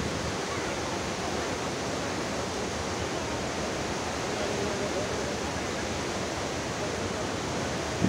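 Steady rush of Athirapilly Falls, the Chalakudy River's large waterfall, pouring down its cliff as an even, unbroken noise of falling water.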